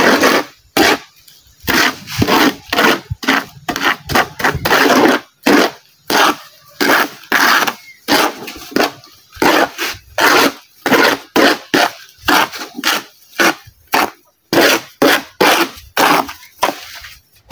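Steel hand trowel scraping and chopping through wet cement mortar and coarse sand on a steel plate, mixing concrete by hand in quick, irregular strokes, about one or two a second.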